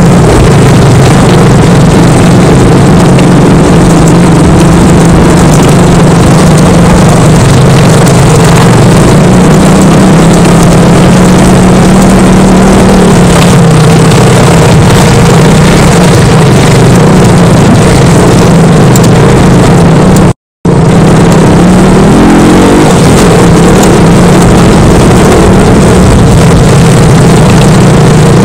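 KTM RC single-cylinder motorcycle engine running at a fairly steady pace while riding over a rough rocky track, under a constant loud rush of noise. The sound cuts out for an instant about twenty seconds in.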